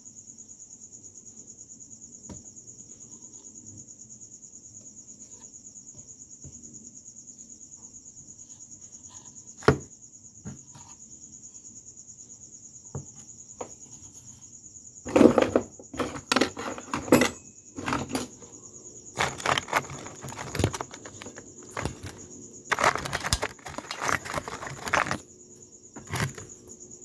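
Steady high trill of crickets throughout. From about fifteen to twenty-five seconds in it is broken by bursts of clicks, knocks and rattles from handling.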